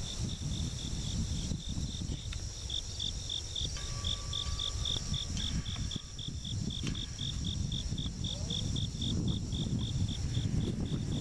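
Cricket chirping in a steady rhythm, about four short high chirps a second, with a fainter steady trill of other insects higher up, over a continuous low rumble.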